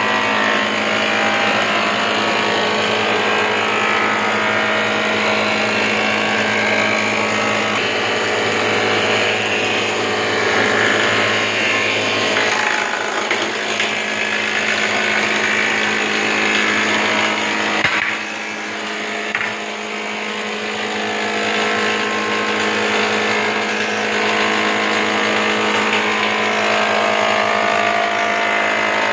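Bindi combination wood planer running under power: a steady machine hum with a rougher cutting noise over it, swelling and changing as boards are planed. The sound dips briefly about eighteen seconds in.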